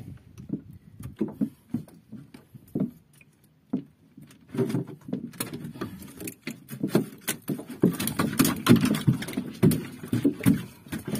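Irregular light knocks, taps and rustling on a small fishing boat as the rod and line are handled, growing busier and louder about halfway through.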